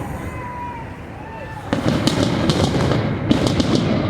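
Fireworks going off: a sudden loud bang about a second and a half in, followed by rapid clusters of sharp crackling reports.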